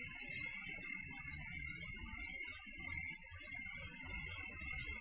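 Steady high-pitched chirring, pulsing a few times a second, over a faint low rumble.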